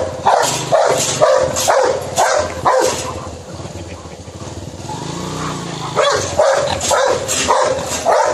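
Rottweiler barking aggressively in quick runs of about two barks a second, with a lull of about three seconds in the middle before the barking resumes.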